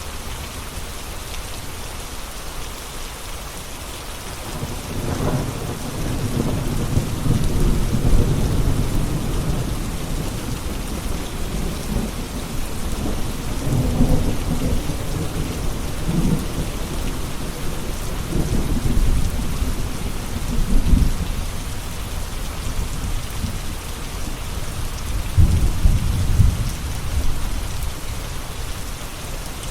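Steady rain falling, with thunder rolling in several long, deep rumbles that swell and fade over it.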